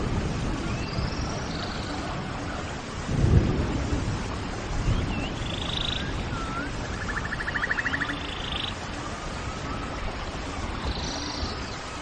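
Animal calls in a tropical rainforest exhibit, repeating every second or two: high arching whistles and hooked chirps, each followed by a short raspy note, with a buzzy rattling trill about halfway through. They play over a steady low rumble, and there is a dull thump about three seconds in.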